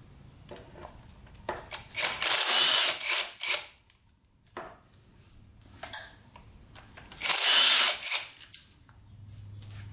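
Cordless power driver with a socket extension spinning bolts out of an engine side cover in short whirs: two longer runs of about a second each, one about two seconds in and one about seven and a half seconds in, with brief blips between.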